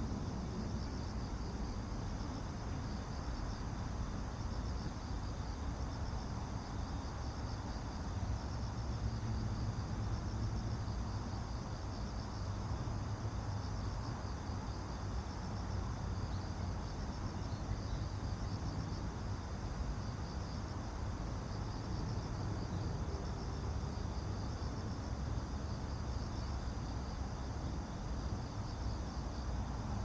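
Insects chirping in a steady high, pulsing chorus, over a constant low rumble.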